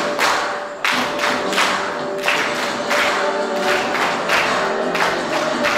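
A song with singing plays while a group of people claps along in time, a steady beat of hand claps over the music.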